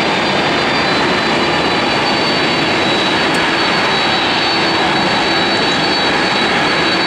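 Boeing 767-300's twin turbofan engines running at taxi power as the airliner taxis: steady jet noise with a high, even whine on top.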